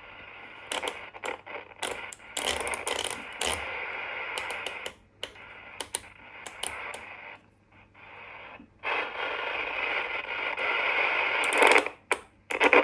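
AM CB handheld radio's speaker giving out hissing static full of sharp crackles, cutting in and out several times. The scratchiness is what the owner thinks calls for realigning the channel selector.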